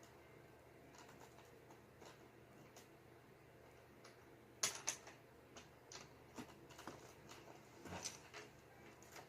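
Faint, scattered clicks and taps of plastic Lego bricks being handled and pressed together, with a couple of sharper clicks about halfway through and again near the end.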